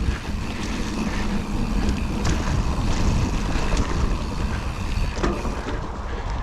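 Wind rushing over a helmet or chest-mounted action camera's microphone as a mountain bike rides downhill at speed, with tyre noise on dirt and a few brief knocks and rattles from the bike over bumps.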